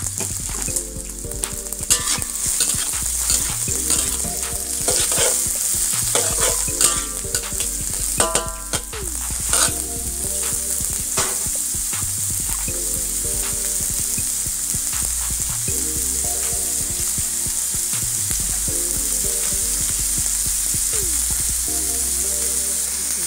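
Chopped red onion and garlic sizzling in hot oil in a wok as they are sautéed. For about the first ten seconds there are clicks and scrapes from stirring, and after that a steady sizzle.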